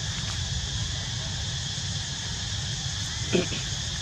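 Steady outdoor ambience of insects buzzing, over a low rumble. A short vocal sound comes about three seconds in.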